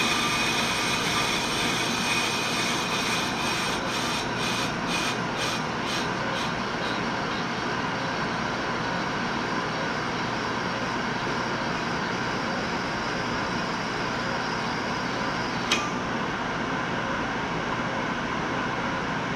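On-car brake lathe running, its cutting heads scraping steadily across both faces of a brake rotor as they machine it. The higher scraping flickers and fades about six seconds in. A single sharp click comes about sixteen seconds in, and the cutting noise stops near the end.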